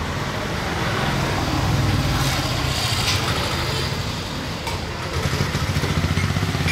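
Street traffic noise with an engine running close by: a steady low rumble that pulses quickly near the end.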